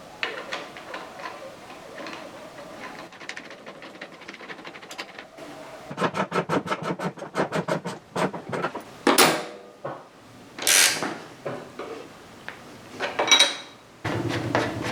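Workshop tool noises: clicking and rattling, with a run of rapid, evenly spaced clicks partway through, then three short, loud hissing bursts.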